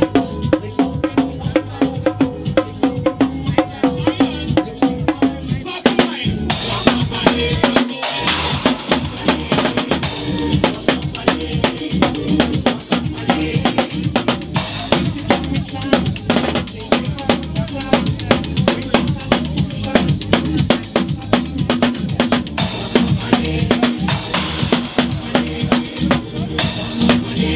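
Live drum kit played fast and hard: rapid snare and rimshot hits over bass drum, with crash cymbals coming in about six seconds in, all over recorded dance music with a steady low beat.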